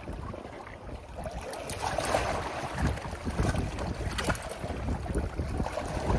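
Wind gusting against the microphone, an uneven rumble that rises and falls.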